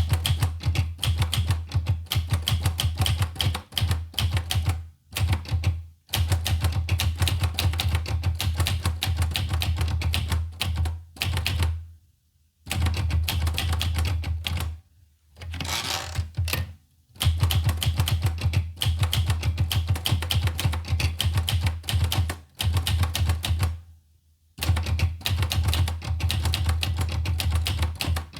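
Olivetti Lettera 25 portable manual typewriter being typed on: fast runs of clacking key strikes lasting a few seconds each, broken by short pauses.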